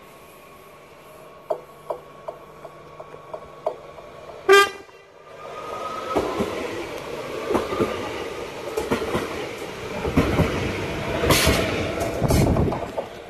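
Electric NS Sprinter passenger train gives one short horn blast about four and a half seconds in. It then passes close by with a rumbling, clattering run of wheel clacks over the rails.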